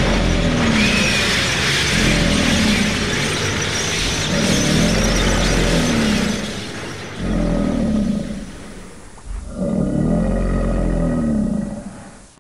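Dubbed sound effects: a loud fire whoosh fills roughly the first seven seconds, then monster-style roars for the toy dinosaurs. A low pulsing loop repeats every second or two throughout.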